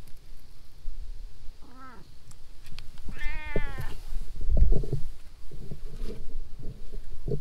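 Long-haired orange tabby cat meowing twice: a short meow about two seconds in, then a longer, higher, wavering meow a second later. The meows are followed by low rumbling thumps, which are the loudest part.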